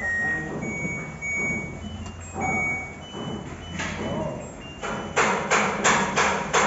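Washing machine playing its end-of-cycle tune in thin electronic notes as the cycle ends, over a low hum. About five seconds in, a fast regular run of sharp noisy pulses starts, about three a second.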